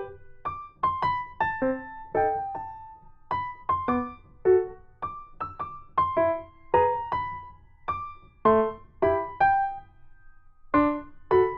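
Background music: a light piano melody of single notes, each struck and left to fade, several a second.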